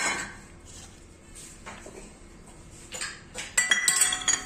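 Stainless steel bowls knocking and clinking against a steel pot as fruit is tipped in: one sharp clank right at the start, then a quick run of ringing metal clinks near the end.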